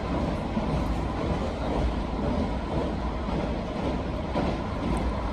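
JR local train running steadily on the rails: an even rumble with a heavy low end.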